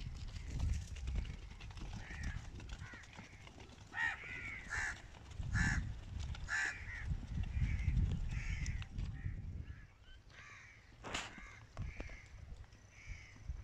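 Crows cawing over and over, short harsh calls every second or so, over a low rumble.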